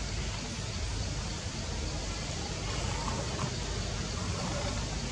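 Steady outdoor background noise: an even hiss with a low rumble underneath, and a few faint short sounds about halfway through.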